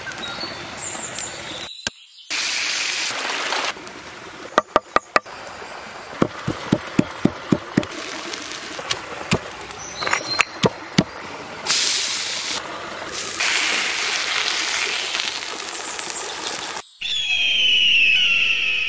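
A run of short outdoor cooking clips: stretches of hiss broken by abrupt cuts, and a string of sharp knocks about three a second in the middle. It ends in a whooshing sound effect with gliding tones.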